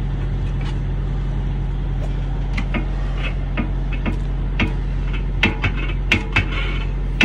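Steady low idling engine hum. Over it come short metallic clicks and clanks from a long lug wrench being worked on a semi-trailer wheel's lug nuts, more frequent in the second half.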